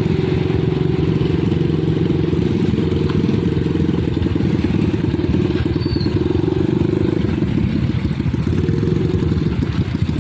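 Motorcycle engines idling and running together, a steady low pulsing throughout.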